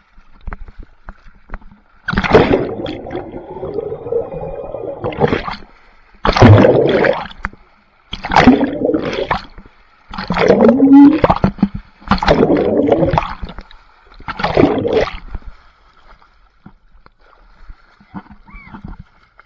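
Pool water splashing and gurgling, recorded on a GoPro in the pool, in six loud bursts of one to three seconds each. A faint steady high tone runs underneath.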